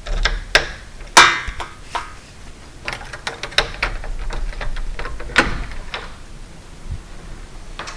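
Sharp metallic clicks and knocks of a loose, snapped mortice lock door handle being handled and worked on the door, the loudest about a second in with a brief ring.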